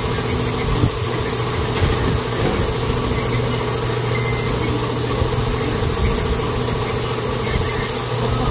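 A motor or engine running steadily, with a constant mid-pitched hum over a low drone.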